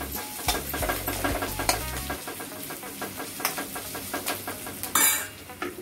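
Metal spoon stirring and scraping onions and green chillies in a stainless steel pan, with a light sizzle of frying, as ginger-garlic paste is mixed in. Repeated scrapes, with one louder rasp near the end.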